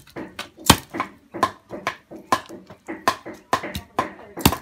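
Meat cleaver chopping through a cooked chicken, bones and all, on a round wooden chopping block: a string of sharp chops, about two a second.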